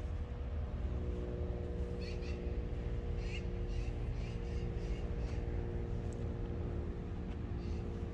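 Steady low rumble and even hum of a running engine, with a few faint, short, high chirps about two and three and a half seconds in.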